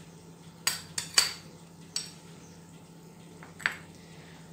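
A metal spoon clinks and scrapes against a small ceramic bowl as diced green pepper is tipped out of it. There are several sharp clinks, the loudest about a second in.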